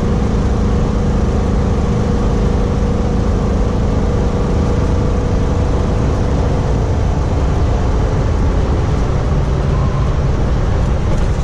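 Cab noise of a mid-1980s Tiffin Allegro motorhome on a Chevy P30 chassis driving uphill at highway speed: a steady engine drone with tyre and road noise and a low hum. No rattles are heard.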